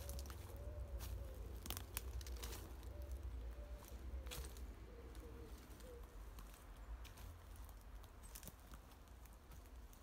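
A pigeon cooing, a run of short low rising-and-falling notes that stops about six seconds in, with irregular crunching footsteps on a wood-chip path and a steady low rumble underneath.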